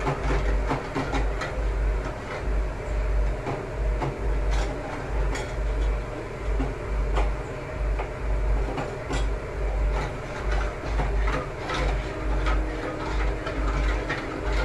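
A metal spoon stirring milk and sugar in a metal pot on the stove, scraping and clicking against the pot in a steady rhythm of about one and a half strokes a second.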